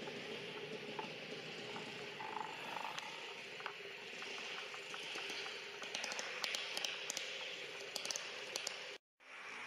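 Steady outdoor background hiss with a faint low hum, and a few faint high ticks or chirps between about six and eight and a half seconds in; the sound cuts out completely for a moment near the end.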